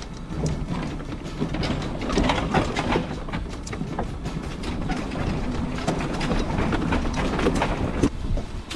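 A hand dolly loaded with an old riding lawnmower, towed on a metal chain behind a golf cart, rattling and clanking over rough ground, over a steady low rumble of rolling.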